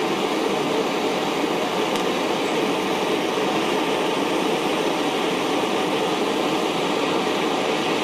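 Gas torch flame hissing steadily while it heats a stainless-steel microtube and its fitting to brazing temperature.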